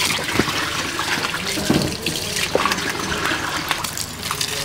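Water running from a garden hose and splashing into a plastic basin and over a puppy being washed, with a steady rush broken by irregular splashes.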